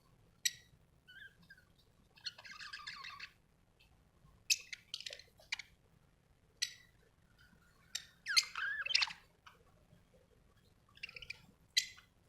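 Budgerigar chirping: scattered short sharp chirps, a brief warbling chatter early on, and a louder run of gliding calls just past the middle.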